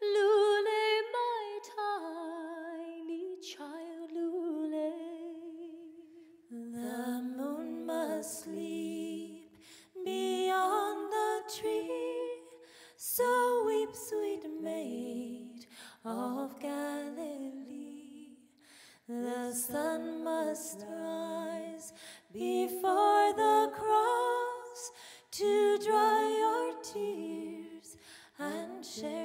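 Three women's voices singing a slow carol melody in close three-part harmony without words, hummed in phrases a few seconds long with short breaks between them.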